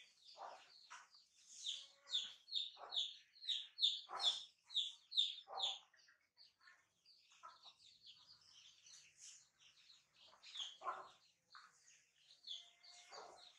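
Chickens calling: clucks with a run of short high chirps, about two a second, strongest from about two to six seconds in.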